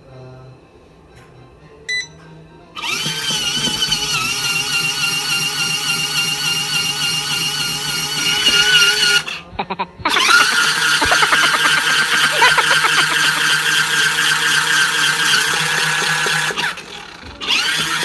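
Small electric motor of a mini portable folding washing machine running with a steady whine of several held pitches. It starts suddenly about three seconds in and cuts out briefly twice, once about halfway through and once near the end.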